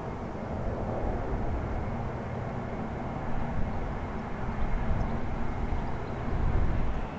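Four Europrop TP400 turboprop engines of an Airbus A400M Atlas passing low overhead: a deep rumble with a steady propeller hum, swelling louder toward the end.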